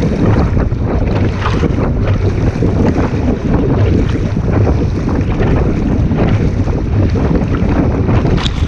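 Strong wind buffeting the microphone over rushing water, aboard a small sailboat under sail.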